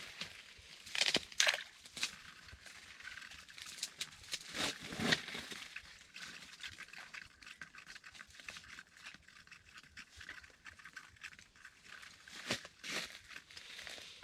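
Rustling, crinkling and light scraping from hands handling things at close range, with a few short knocks and clicks, the loudest about a second in, about five seconds in and near the end.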